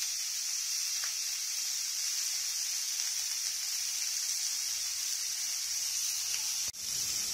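Three hamburger patties sizzling steadily on a Tefal tabletop grill, a continuous high hiss that drops out for an instant near the end.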